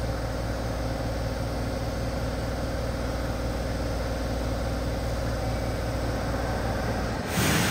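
Subway train standing at an underground platform, its onboard equipment giving a steady low hum. About seven seconds in the deepest part of the hum stops and a sudden loud hiss sets in.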